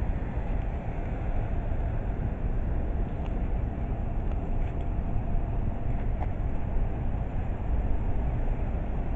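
Steady outdoor ambience: a continuous low rumble with a hiss over it and no distinct events.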